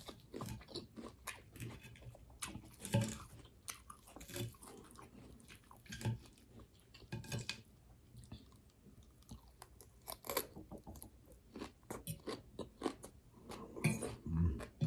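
A person chewing mouthfuls of raw garden salad, with irregular crisp crunches of lettuce and fresh vegetables.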